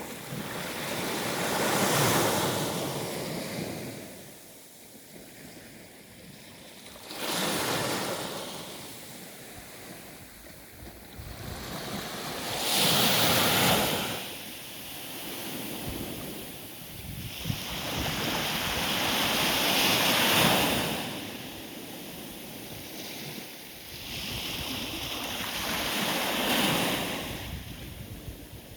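Sea waves breaking and washing on the shore, surging and fading about every five or six seconds.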